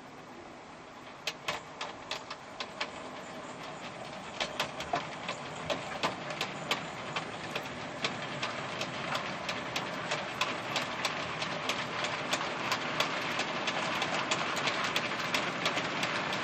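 OO gauge model goods train running along garden track: a rolling rumble of wagon wheels on the rails that grows steadily louder, with sharp clicks, two or three a second, as the wheels pass over the rail joints.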